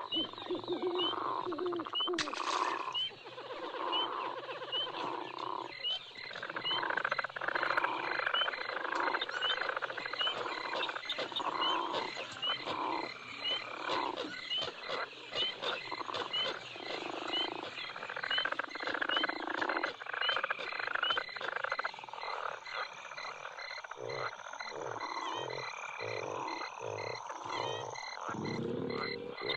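Bayou night ambience: frogs croaking over and over, with insects chirping steadily in the background.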